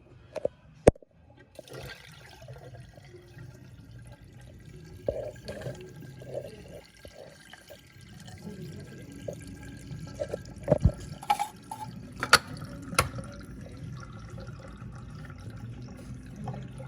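Bosch dishwasher draining: water rushing through the drain with a steady low hum from the drain pump, and a few sharp knocks about a second in and again around eleven to thirteen seconds in.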